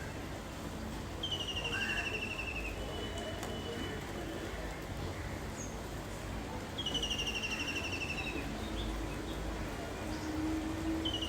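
Small songbirds calling in rapid, falling trills, three times, each lasting about a second and a half, over a steady background hiss of rain.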